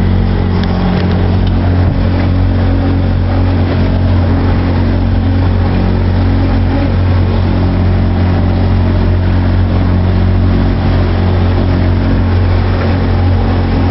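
Motorboat engine running at a steady speed, a constant low drone with no change in pitch or level.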